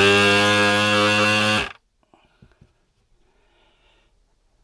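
S-993 desoldering gun's built-in vacuum pump buzzing loudly for under two seconds, then cutting off sharply, as it sucks a molten solder blob off the board into its reservoir: the pump's suction is working again after the repair. A few faint clicks follow.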